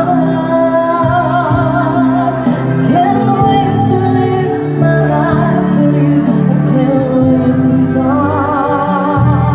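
A woman singing with vibrato into a microphone over a live band's keyboard-led accompaniment, amplified through a PA.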